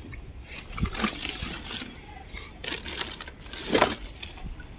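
Water sloshing inside a tied plastic fish bag, with the plastic crinkling as the bag is lifted and moved. It comes in two noisy bursts, about a second in and again around three seconds in.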